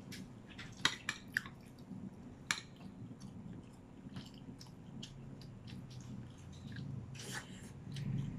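Close-miked chewing of food with a spoon, with a few scattered sharp clicks from the mouth and spoon, a cluster about a second in and another near the end.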